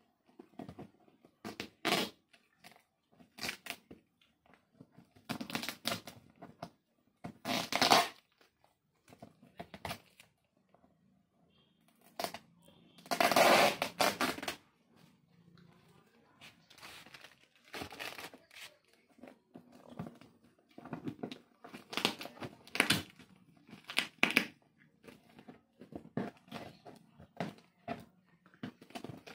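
Scissors cutting and packing tape tearing as a taped cardboard box is opened, in irregular short bursts with pauses; the longest, loudest tear lasts about two seconds around the middle.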